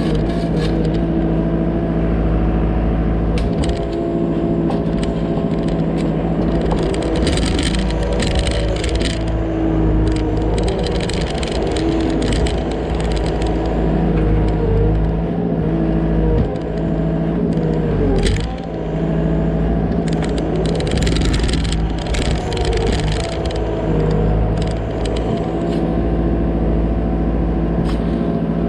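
Digging machine's engine running steadily under load, with the bucket scraping and crackling through soil at irregular moments.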